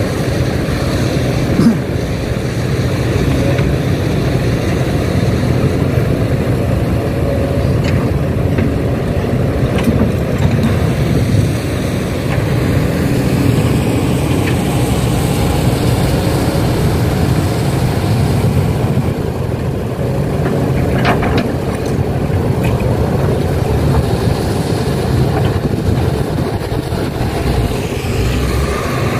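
Heavy diesel machinery, an excavator with dump trucks, running steadily at a dig, with a few scattered knocks and clanks, the sharpest about two seconds in.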